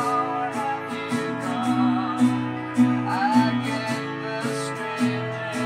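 Acoustic guitar strummed in a steady rhythm, with a gliding melody line sounding above the chords.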